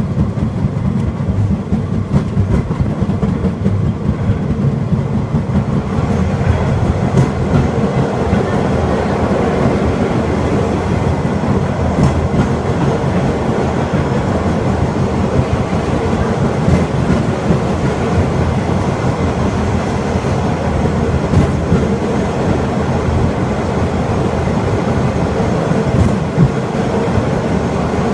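Open-air tourist rail cart of the Takachiho Amaterasu Railway running along the track: a steady, even rumble of the motor and wheels on the rails, with a few faint ticks through it.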